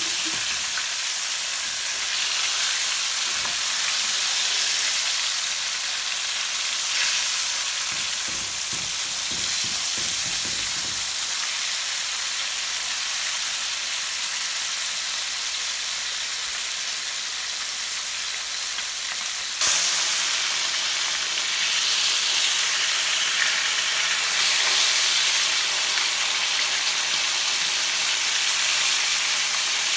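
Food frying in a hot pan, a steady sizzling hiss with a few soft knocks of stirring about a third of the way in. Partway through the sizzle jumps abruptly louder.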